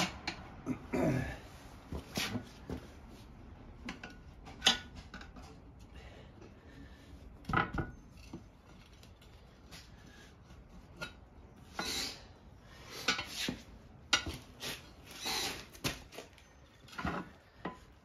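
Tire spoon and screwdriver clinking and scraping against a wheel rim while a tire bead is pried over it: irregular metal clicks and short scrapes.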